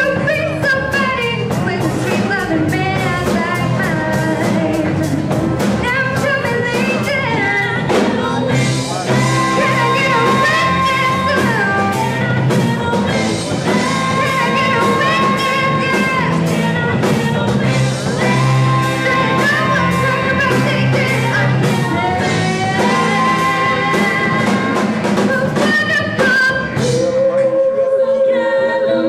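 Live soul band playing, with a female lead singer's held, vibrato notes over drums, saxophone and keyboard. Near the end the band drops away under one long sung note.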